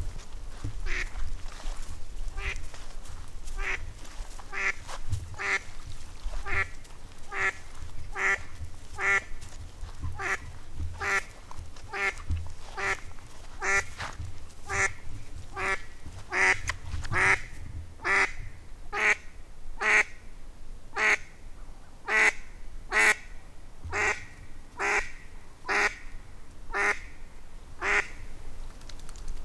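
Mallard hen quacking over and over, a steady series of single quacks about one and a half a second, growing louder about halfway through.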